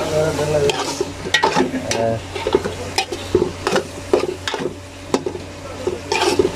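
Metal ladle stirring raw prawns with tomatoes and onions sizzling in oil in an aluminium pot, with frequent clinks and scrapes of the ladle against the pot over a steady sizzle.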